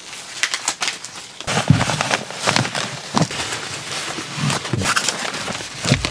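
Plastic vapour-barrier membrane rustling and crinkling as it is handled and pressed into place with adhesive tape, full of irregular crackles with a few soft thumps.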